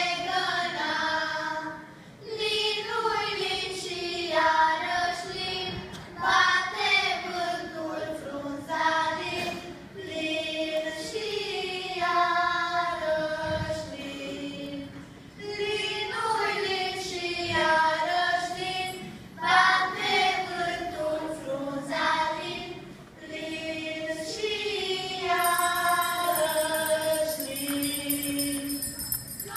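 A group of children singing together with a woman's voice among them, a Romanian folk song sung in phrases of a few seconds with short breaths between.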